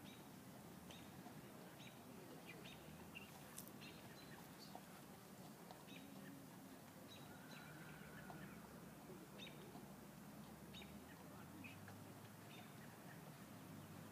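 Near silence: faint background hum with scattered short, high bird chirps at irregular intervals.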